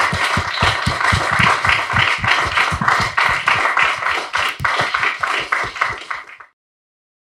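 Small audience applauding, a dense patter of hand claps that thins out and then cuts off abruptly about six and a half seconds in.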